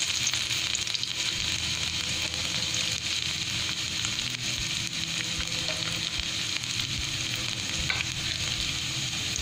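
Chopped garlic frying in hot sunflower oil in a kadai, a steady, even sizzle with faint scattered crackles.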